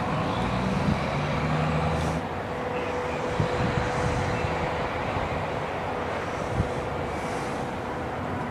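A motor vehicle engine running steadily, its low hum easing off about two seconds in, over a steady outdoor rumble.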